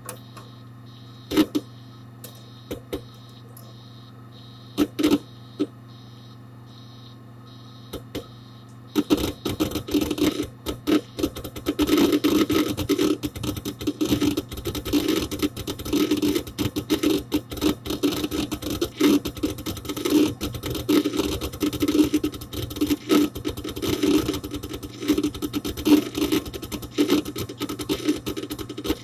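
Hard disk drive inside a Dell Dimension 4700 desktop computer, recorded from inside the case: a few scattered seek clicks over the steady hum of the running machine. About nine seconds in, it breaks into continuous rapid clicking and chattering from heavy disk activity.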